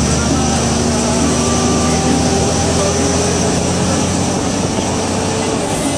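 Tractor-trailer's diesel engine running loud and steady, heard from inside the cab.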